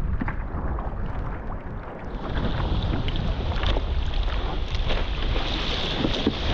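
Wind buffeting a GoPro's microphone while windfoiling, a constant low rumble with scattered ticks and knocks. About two seconds in, a steady hiss of rushing water joins in and holds.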